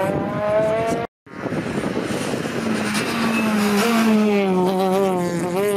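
Rally car engines at full throttle: a first car accelerating with its engine note climbing, cut off by a brief gap of silence about a second in, then a second rally car driven hard past close by, its engine note climbing and then dropping as it goes by.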